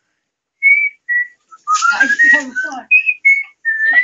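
A person whistling a melody in short clear notes that step and slide up and down, starting about half a second in, with a brief burst of voices underneath partway through.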